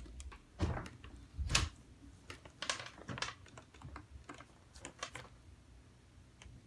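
Typing on a computer keyboard: irregular keystrokes at an uneven pace, a couple of harder presses in the first two seconds, tapering off near the end.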